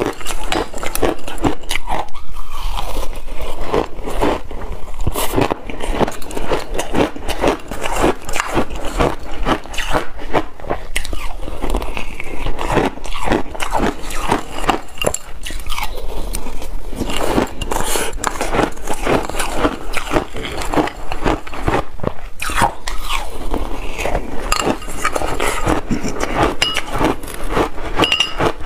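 Shaved ice being bitten and chewed close to a clip-on microphone, a dense run of loud, crunchy crackles, with a metal spoon scooping and scraping in a glass bowl between mouthfuls.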